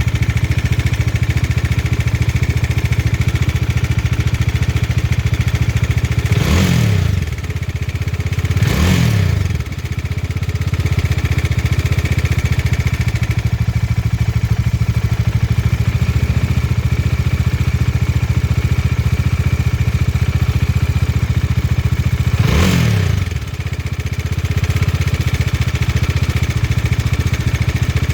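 Bajaj Dominar 400 single-cylinder engine idling with a mechanical noise from a worn cam chain tensioner that has too much play. The throttle is blipped three times, the revs rising and falling briefly each time.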